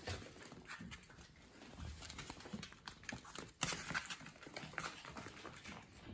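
Papillon puppies scampering and play-scuffling on a laminate floor, their claws clicking and pattering in quick irregular steps, with a sharper knock about three and a half seconds in.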